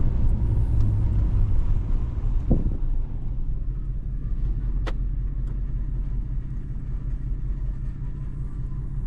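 A truck driving on a dirt road, heard from inside the cab as a steady low rumble of engine and tyres. There is a brief knock about two and a half seconds in and a sharp click about five seconds in.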